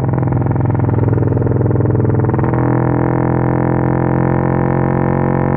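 Motorcycle engine with a custom-tuned Juken 5 ECU held at a steady engine speed, giving a loud, constant drone through the exhaust. Its tone shifts slightly about two and a half seconds in.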